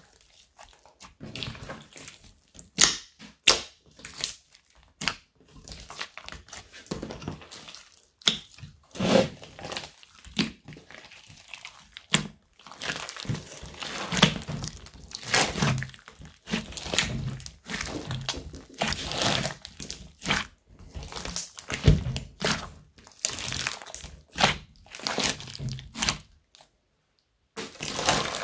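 Hands squeezing and folding a big mass of old slime studded with foam beads, giving irregular wet squelches, pops of bursting air pockets and crunchy crackles, several a second with uneven pauses. A short silent break comes near the end.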